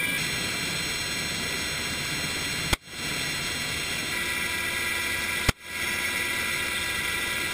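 Two sniper rifle shots fired from an open helicopter door, about three seconds apart, over the steady noise of the helicopter's engine and rotor inside the cabin. After each shot the helicopter noise briefly dips.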